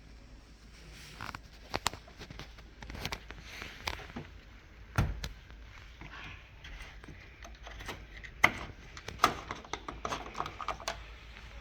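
Irregular clicks and knocks of hands and tools handling the parts of a washing machine, with light rustling between them; the sharpest knocks come about five seconds in and again after eight seconds.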